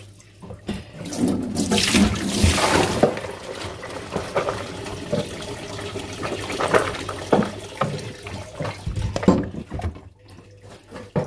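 Rinse water splashing out of a bowl of washed beans into a stainless steel sink, followed by the wet beans being tipped into a plastic colander and stirred by hand, with scattered small knocks and rattles.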